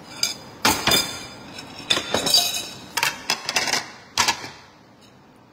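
Handling noise at a table: a run of sharp knocks and clatter as a plastic bag of food and a bowl are moved about. The noise dies away about four and a half seconds in.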